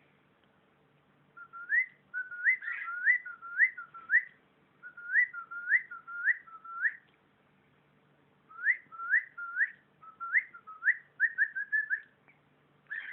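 Cockatiel whistling phrases of short, rising notes, broken by two pauses, with a quicker run of notes near the end.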